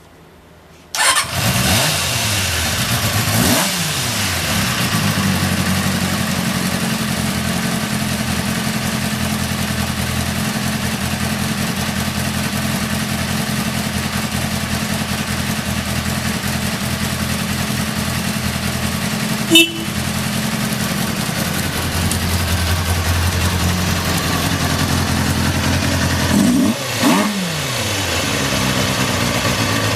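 Kawasaki ZX-4's inline-four engine starting on the first press of the starter about a second in, revving briefly and settling into a steady idle. A sharp click comes about two-thirds of the way through, and the engine is revved once more near the end before returning to idle.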